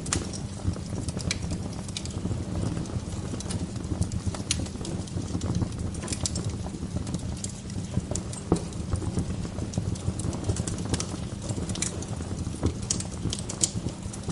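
Wood fire crackling: irregular sharp pops and snaps, several a second at times, over a steady low rumble.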